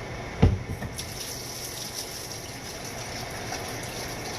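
A single knock about half a second in, then water running steadily from a kitchen tap to fill a vessel with more water for the soup.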